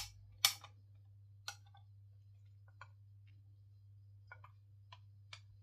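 Irregular sharp clicks and taps of RC car chassis parts being handled and set down, about seven in all, the loudest two right at the start, over a steady low hum.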